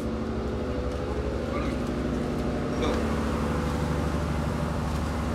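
Steady low drone of the old fishing boat's engine, running with an even, rapid pulse.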